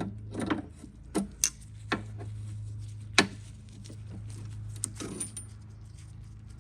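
Scattered metallic clicks and taps of hands working the wing nut and cable hardware loose on a mower handle, the loudest about three seconds in, over a steady low hum.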